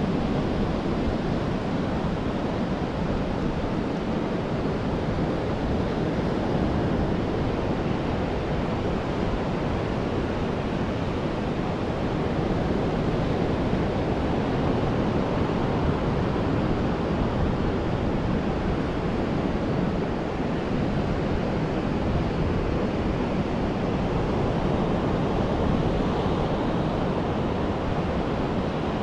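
Ocean surf breaking and washing up the beach, a steady rush that swells and eases gently in loudness.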